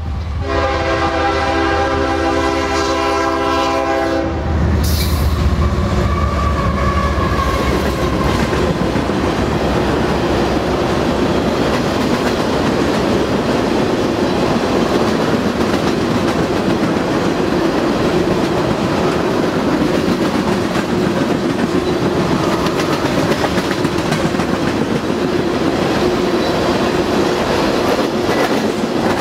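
Diesel locomotive horn sounding a chord of several notes for the grade crossing, cutting off about four seconds in. The CSX freight's locomotives then pass with a deep engine rumble, and a train of empty tank cars follows in a steady roll of wheels on rail.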